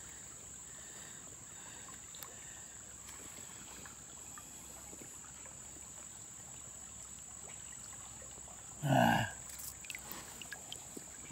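A hand stirring and digging in a shallow creek bed, with faint water movement, over a steady high-pitched insect drone. About nine seconds in there is a brief vocal sound, the loudest thing here, followed by a few small clicks of stone.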